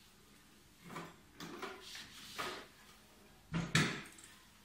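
Parts of a hand-push vegetable seeder being handled and fitted: a few light knocks and rattles, then a sharper, louder knock about three and a half seconds in as the white chain cover is set into place on the frame.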